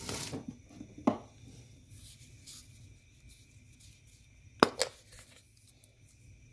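Sharp clicks from kitchen handling: one about a second in and a quick pair a little past the middle, over low room noise.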